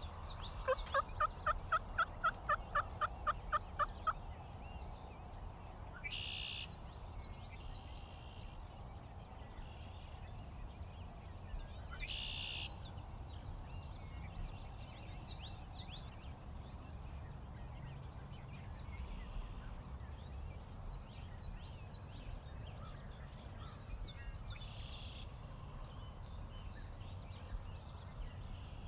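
Wild turkey yelping: a run of about a dozen evenly spaced yelps in the first four seconds. Fainter, higher bird chirps come and go through the rest.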